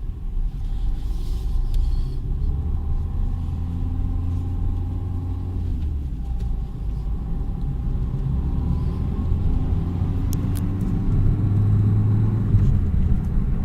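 Car driving on the road with a worn wheel bearing droning: a low hum that swells louder near the end, the loud hum the owner takes as the sign of a failed wheel bearing.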